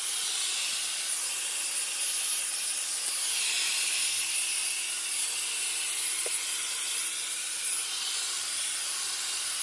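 Shark AZ910UKT upright vacuum cleaner running with the crevice tool on its released wand: a steady hiss of air drawn through the narrow nozzle over a faint, even motor hum.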